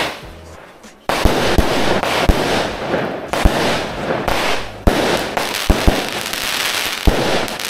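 Consumer aerial fireworks going off: one bang at the start, then from about a second in a continuous crackling volley broken by about a dozen sharp, irregularly spaced bangs.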